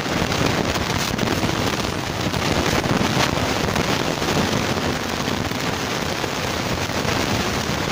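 Close-miked eating of baked noodles with cheese, forked and spooned from a bowl and chewed, heard as a steady crackly hiss.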